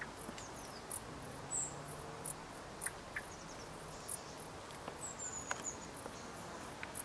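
Dark bush crickets chirping: short, very high, dry chirps repeated at irregular intervals of about half a second to a second. A few faint, high, descending whistles sound in between.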